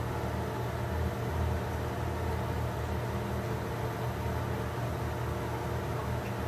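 Steady low mechanical hum with a faint even hiss, unchanging throughout.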